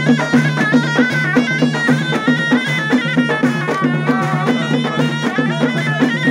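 Live folk music: a reed wind instrument plays an ornamented melody over a steady low drone, while a large stick-beaten drum and a frame drum keep a quick, steady beat.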